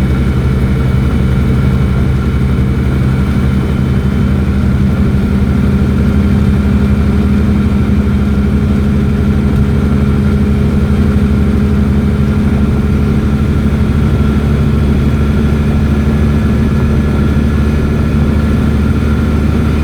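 Invacar's small engine running steadily at an even pitch while cruising, a loud drone heard from inside the car's cabin.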